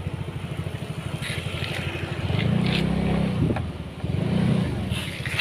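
Motorcycle engine running at low speed as the bike is ridden, its pulse swelling louder twice with the throttle.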